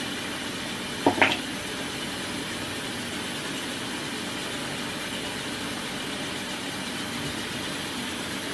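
Steady kitchen hiss and low hum, with a short clatter and squeak about a second in.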